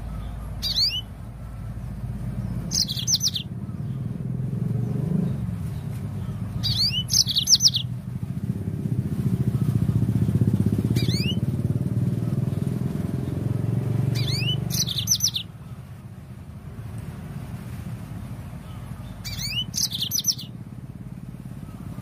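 Yellow-fronted canary (Mozambique canary) singing short chirpy phrases of quick sweeping notes, about six phrases a few seconds apart. Under it a low motor-vehicle rumble swells through the middle and drops away suddenly about two-thirds of the way through.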